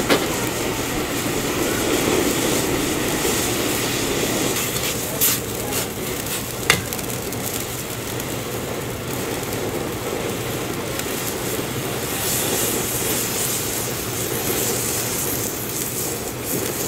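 Instant ramyeon broth boiling hard in a small pot over a gas burner: a steady bubbling and hiss. Two sharp clicks, about five and seven seconds in.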